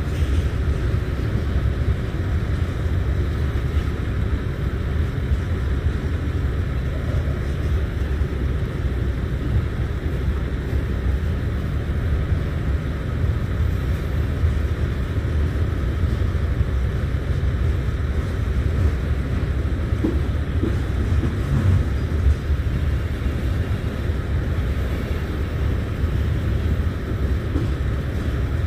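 Freight cars of a long freight train rolling past, a steady low rumble of wheels on the rails.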